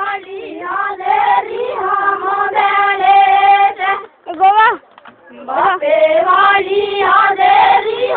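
A group of high voices singing together, with long held notes in two phrases and a short break about halfway through.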